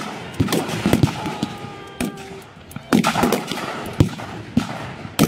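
Rifles firing blank rounds in a ragged volley: about half a dozen sharp shots at irregular intervals.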